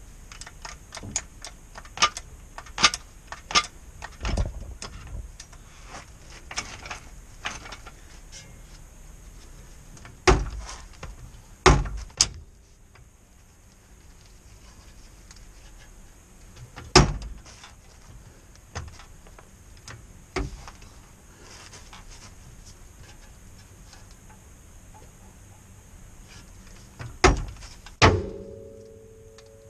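Metal clanks, taps and knocks from hand work on a truck's front suspension. A run of sharp clicks and taps fills the first several seconds, then about five heavy single clanks are spread through the rest.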